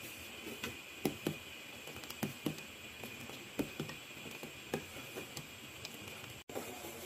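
A steel ladle stirring thin milk pudding in a steel pot, knocking and scraping lightly against its sides in irregular clinks, over a steady hiss. The sound cuts out for an instant near the end.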